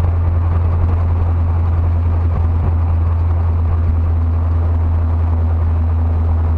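1977 Ford Ranchero GT's 351 Windsor V8, on a freshly rebuilt carburetor, running steadily: a constant low drone with an even rushing noise over it.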